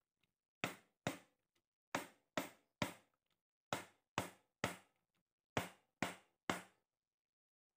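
A hammer striking the end of a socket tool set on the clutch centre nut of a Honda Revo Absolute 110 engine. It gives eleven sharp knocks in quick groups of two or three, each ringing briefly.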